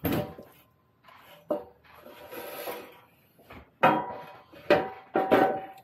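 Steel trailer-hitch receiver clanking and scraping against metal as it is lifted and worked into place: several sharp knocks, each with a brief metallic ring, and a rasping scrape about two seconds in.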